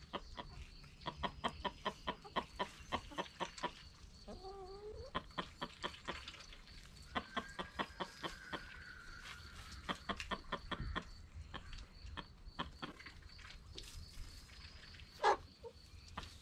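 A flock of hens clucking as they forage, with runs of short clucks, a drawn-out gliding call in the middle and one louder call near the end.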